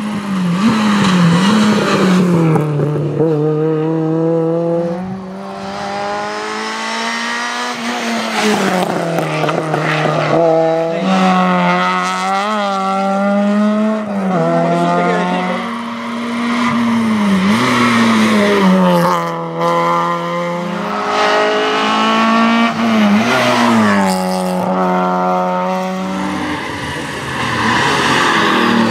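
A string of rally cars driven flat out past the roadside, engines revving hard, the pitch climbing and then dropping sharply at each gear change or lift-off, many times over.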